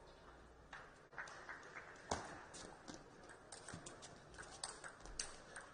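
Table tennis ball bouncing on the table and being struck by the bats: a series of sharp, irregular clicks, the loudest about two seconds in.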